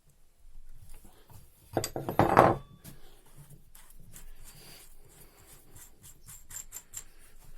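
Metallic clatter of a 30 mm wrench working on a Bosch common-rail diesel injector during disassembly. A loud burst of clanking comes about two seconds in, followed by scattered light metal clicks.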